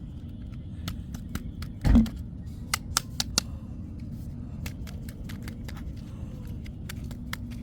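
Small plastic clicks and taps from handling the handheld vacuum's removed filter and dust cup while they are cleaned with a small brush, with one louder knock about two seconds in.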